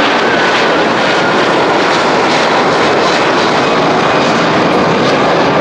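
Two Rolls-Royce Trent 700 turbofans of an Airbus A330-200 at takeoff power during the climb-out just after liftoff, with the aircraft passing close overhead: loud, steady jet engine noise.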